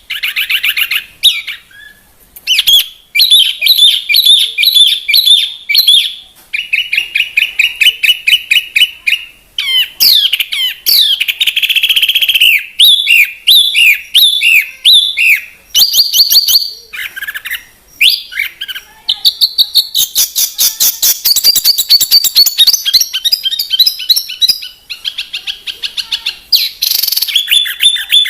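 Bird singing a long, varied song of rapid chirps, trills and gliding whistles, with a few short pauses and a long unbroken run of fast repeated notes past the middle.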